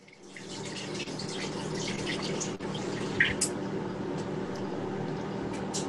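Egg mixture sizzling and crackling steadily in a hot frying pan, coming up just after the start, over a faint steady hum.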